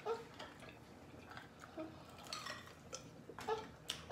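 Faint eating and drinking sounds at a table: scattered small clicks and mouth noises as food is chewed and a drink is sipped from a plastic cup.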